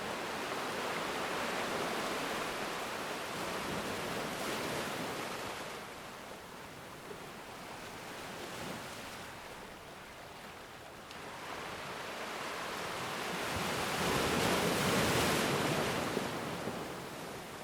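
Ocean waves breaking and washing on a shore, a steady rush of surf that swells and ebbs: one wave builds to its loudest about fourteen seconds in, then falls away.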